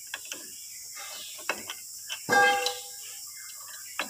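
Light metal clicks and knocks as a tie rod end is handled and its tapered stud is set into the steering knuckle of a Case 580M backhoe, with one louder ringing clank a little past the middle.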